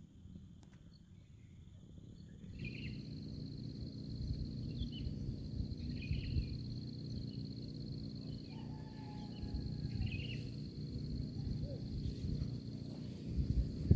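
Low wind rumble on the microphone, with a steady high insect drone and short chirps repeating about every two seconds. All of it grows louder about two and a half seconds in.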